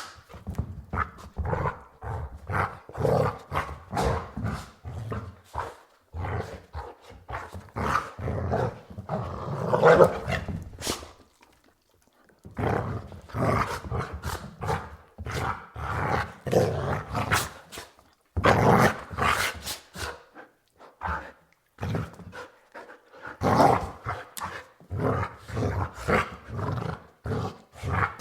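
Border Collie barking and growling in repeated bouts of short sharp barks mixed with rumbling growls, with a brief pause about twelve seconds in.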